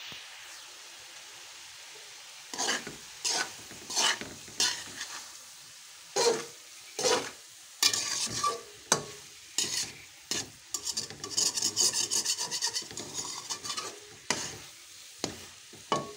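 Slotted metal spatula stirring and scraping grated-carrot halwa (gajrela) around a metal pot over a low flame, with a faint sizzle underneath. The halwa is cooked down nearly dry, at the last stage of cooking. After a couple of seconds of steady low hiss the scraping strokes begin, irregular at first, then a quick run of rapid strokes in the middle before they slow again.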